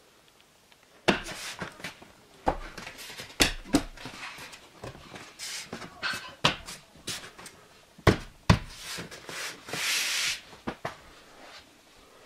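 Irregular knocks, taps and clicks from hands working on a window reveal and its trim, with a brief hiss about ten seconds in.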